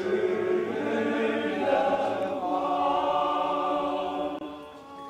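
Choir singing a cappella in several voice parts, holding sustained chords, then fading out near the end.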